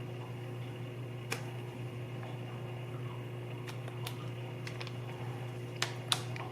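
A few sharp clicks and small snaps from handling a phone and its plastic case, over a steady low hum.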